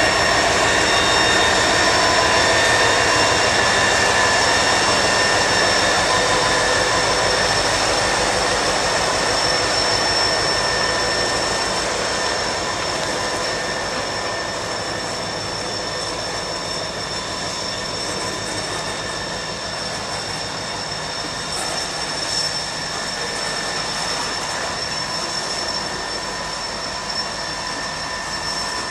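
Freight train rolling past on steel wheels, with a steady high squeal from wheels on the rail over the rumble of the cars, slowly fading as it moves off.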